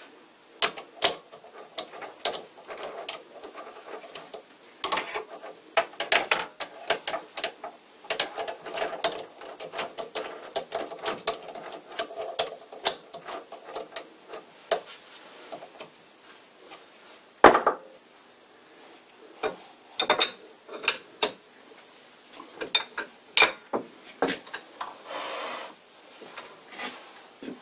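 Metal-on-metal clinks, taps and scrapes of hand work on a small metal lathe, including a chuck key turning in the three-jaw chuck. Irregular sharp knocks throughout, with longer stretches of scraping in the middle and near the end.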